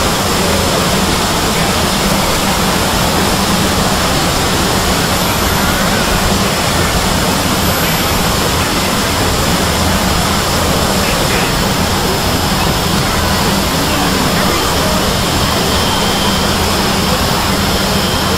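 Hundreds of video soundtracks played at once, blended into one loud, steady wall of noise in which no single voice or tune can be picked out.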